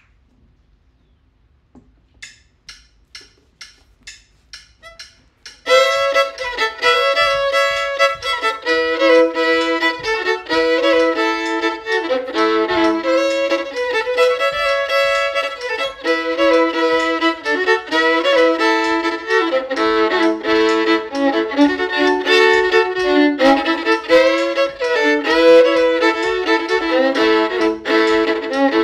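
A few seconds of quiet broken by a run of short, even ticks about three a second, then from about five and a half seconds in a fiddle plays a brisk A-major old-time/newgrass tune, at times sounding two notes at once.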